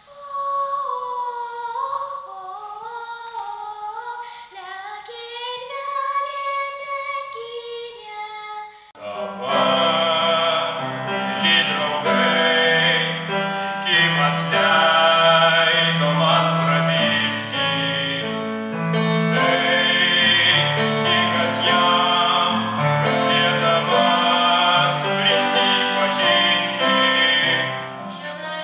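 A child singing alone without accompaniment, a single melodic line, then after about nine seconds a different young singer with piano accompaniment, noticeably louder and fuller.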